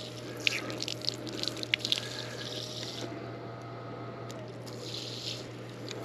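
Water spraying from the handheld head of a Deerfamey battery-powered portable shower and splashing on a hand and sandy ground; the spray dies down about halfway through and returns briefly near the end. A steady hum from the small pump runs underneath.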